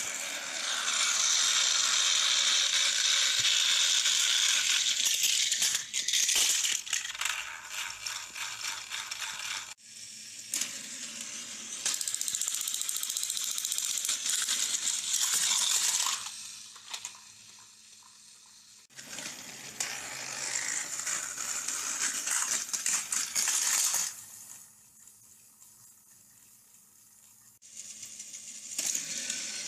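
Motorized plastic toy trains running on plastic track: a loud, busy rattling of small geared motors and plastic wheels clattering along the rails, dropping away twice when the running stops.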